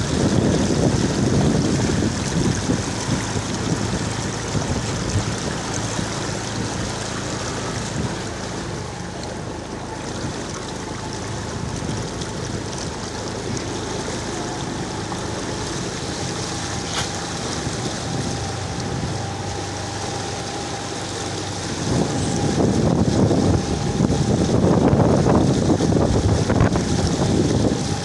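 Motorcycle riding through floodwater: the engine running steadily under the rush and slosh of water pushed aside by the front wheel, with wind buffeting the microphone. The water noise swells at the start and again for the last few seconds.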